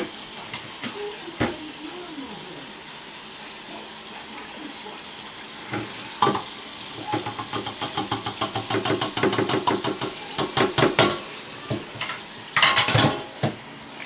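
Kitchen faucet running into a stainless steel sink while ground beef is drained through a metal colander, with knocks and a run of metal clatter from the colander and pot. The water is shut off near the end.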